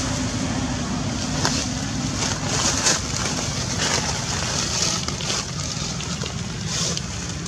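A steady low rumble, with dry fallen leaves crackling and rustling every second or so as the monkeys move in them.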